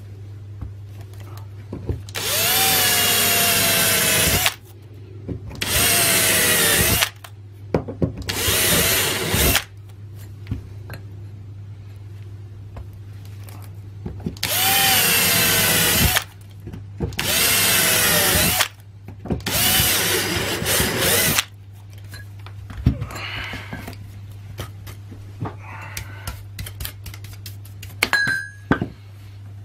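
Cordless drill with a 5.5 mm split-point metal bit whining as it bores through a compressed stack of PVC binder covers, six short runs in two groups of three.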